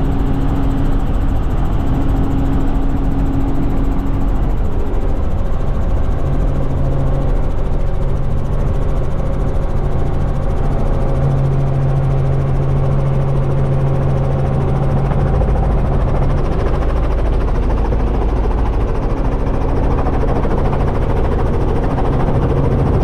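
Steady drone of a small helicopter's engine and rotor heard from inside the cabin, loud and unbroken, as the helicopter comes in low and lands, still running on the ground at the end.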